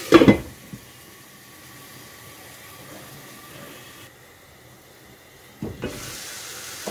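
A glass lid clinks down onto a nonstick kadhai of frying vegetables, and the cooking goes on as a faint hiss muffled under the lid. Near the end the lid knocks again as it is lifted, and the sizzle comes through louder.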